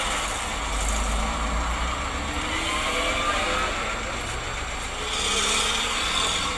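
Steady road and engine noise of a moving car, picked up by a dashcam microphone inside the cabin, with an engine note rising about halfway through and traffic noise swelling a little near the end.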